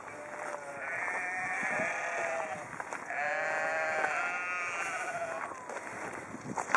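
Sheep bleating: a few long, wavering calls, some overlapping.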